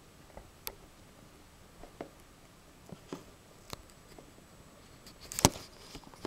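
A few scattered light clicks and taps, with a louder cluster of clicks about five seconds in.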